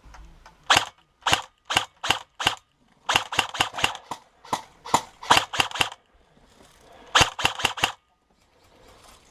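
Airsoft guns firing: sharp cracks, first single shots a little under half a second apart, then quicker strings of shots, a short pause, and one more string near the end.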